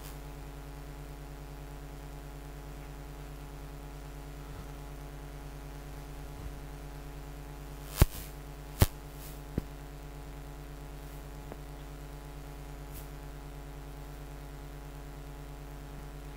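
Steady electrical mains hum in a quiet room, with three sharp clicks about eight to nine and a half seconds in, the first two loud and the third fainter.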